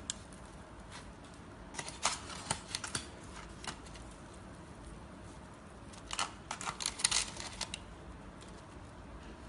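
Aluminium foil crinkling and crackling under a naan as a hand tears pieces off it: two bursts of quick small crackles, about two seconds in and about six seconds in.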